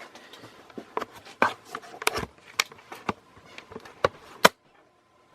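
Handling noise from a hand-held camera being moved: a run of irregular clicks and knocks, ending in a sharp click about four and a half seconds in.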